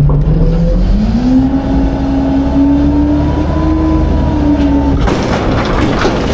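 Autocar/Heil Freedom half-pack garbage truck's engine revving up about a second in and holding high revs to drive the hydraulics while a container is lifted. At about 5 s the revs drop and wooden pallets and trash crash and clatter down into the hopper.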